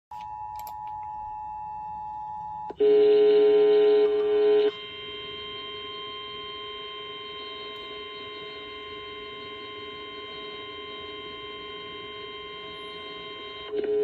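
Emergency Alert System tones over FM radio: the steady two-tone attention signal sounds for nearly three seconds, then a much louder held chord of tones for about two seconds, then a quieter steady tone chord that holds until an announcer's voice begins at the very end.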